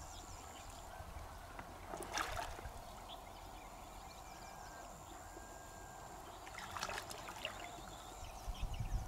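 Water sloshing and splashing as a person wades waist-deep and reaches down into the water by hand, with two louder splashes about two seconds in and about seven seconds in.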